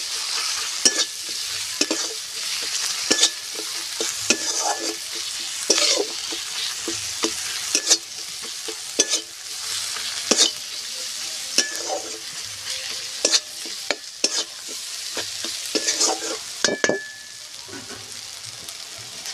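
Spice masala sizzling in mustard oil in a metal kadai while a flat metal spatula scrapes and knocks against the pan in irregular strokes about once a second, some with a brief metallic ring. This is the masala being fried down (kosha). The stirring stops and the sizzle quietens near the end.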